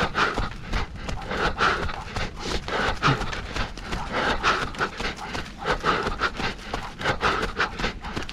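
A canicross runner's hard, rhythmic breathing while running at race pace, a breath about every 0.8 seconds, over quick running footsteps on a trail.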